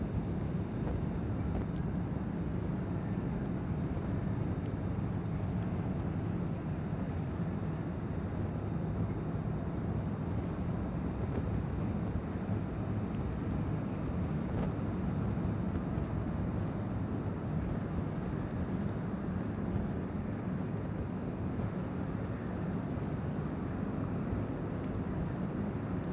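Steady low outdoor rumble of background noise, even in level throughout, with no distinct events.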